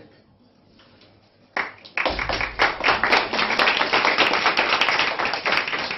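A small group of children and adults applauding, the clapping breaking out about two seconds in and carrying on steadily.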